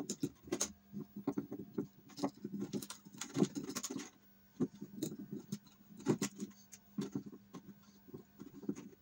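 Fingers untying and pulling nylon strings out of a classical guitar's tie-block bridge: irregular scratching, rustling and small clicks of string and fingers against the bridge and wooden top. A faint steady hum runs underneath.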